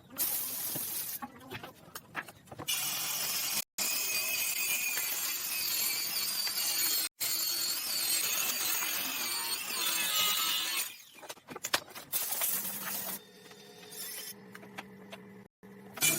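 Workshop power tool running in several short segments cut together, with abrupt breaks between them and a quieter stretch with a low hum near the end.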